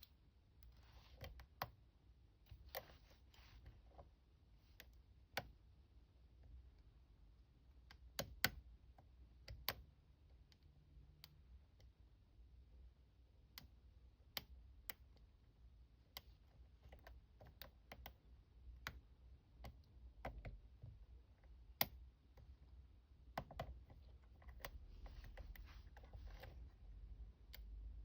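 Faint, irregular small clicks and ticks of a lock pick and tension wrench working the pins of a lock cylinder during picking.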